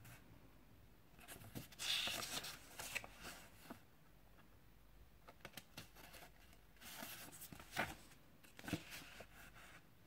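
Pages of a small paper storybook being turned by hand: soft paper rustling with light clicks, twice, starting about a second in and again about seven seconds in.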